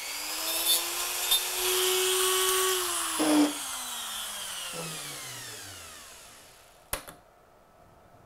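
A hand-held Dremel rotary tool spins up, grinds a sliver off the edge of a model building part so that it fits better, then is switched off and its whine falls away slowly as it winds down. A single sharp click comes near the end.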